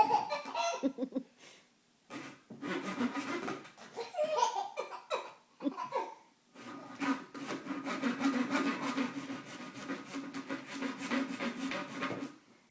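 A plastic drinking straw making funny rasping, squeaky noises, broken by a small child's giggles in the first half, then a long steady buzzing rasp from about six and a half seconds until just before the end.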